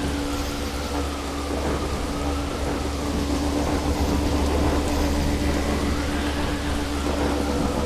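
Storm with heavy rain and wind: a steady loud rush over a deep low rumble, with a faint whistling tone that slowly rises and falls.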